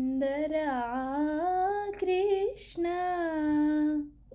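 A woman's voice singing a Krishna bhajan, drawing out the words 'sundara' and 'Krishna' in long, gliding held notes. The singing stops about four seconds in.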